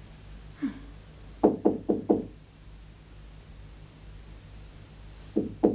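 Knuckles knocking on a door: four quick knocks about a second and a half in, then a second run of knocks starting just before the end.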